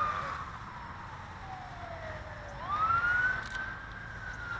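Emergency-vehicle siren wailing: a slow falling sweep, a quick rise about two and a half seconds in, then falling slowly again.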